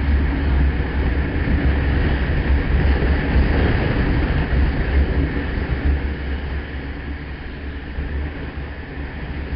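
Motorcycle riding at speed on a highway: a steady rush of wind buffeting the microphone over the engine and road noise, easing a little after about six seconds.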